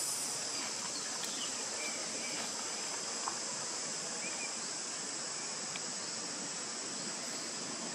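Steady, high-pitched drone of insects, with a few faint short chirps over it.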